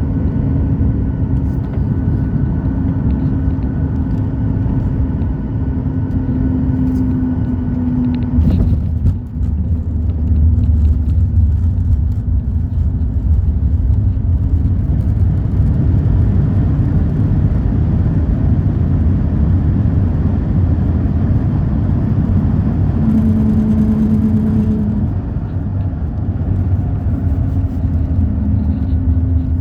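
Steady low rumble and hum of a moving vehicle heard from inside, with a constant tone over the rumble; the sound deepens about eight seconds in.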